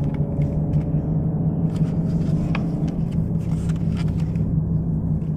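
Steady low hum of a car's cabin on the move, with a few light clicks over it.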